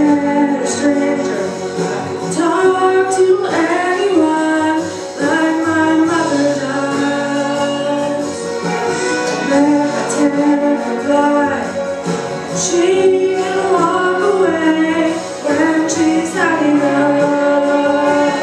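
A young woman singing a slow ballad into a handheld microphone, holding long notes, over an instrumental backing.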